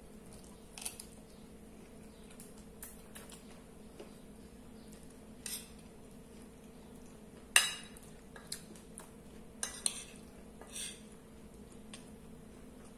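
Metal cutlery clinking and scraping on a ceramic plate while eating: a few scattered clinks, the loudest about seven and a half seconds in, with a small cluster a couple of seconds later.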